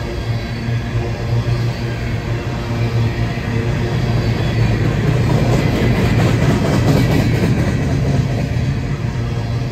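Freight train rolling past: a steady low drone under the rumble and clatter of wheels on the rails, swelling loudest about six to seven seconds in.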